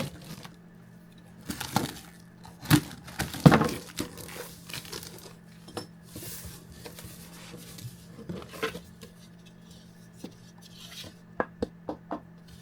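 Unboxing a miniature metal lathe: packaging crinkling and tearing, with irregular knocks and clinks as the metal parts are lifted out and set down. A steady low hum runs underneath.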